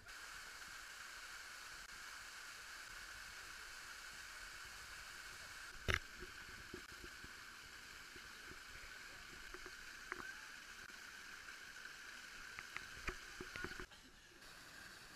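Rushing mountain stream water, a steady noise, with one sharp knock about six seconds in and a few lighter knocks later. It drops quieter shortly before the end.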